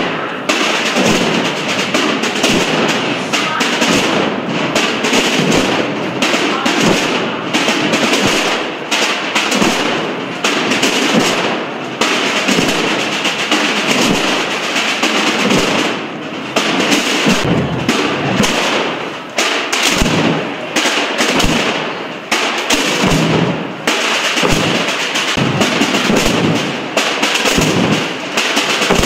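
Many snare drums and bass drums of a Holy Week drum band (tambores y bombos) played together, a dense, continuous rattle of beats with brief dips in loudness.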